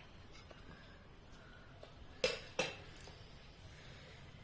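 Two sharp clinks of a kitchen utensil about a third of a second apart, over a faint low hum.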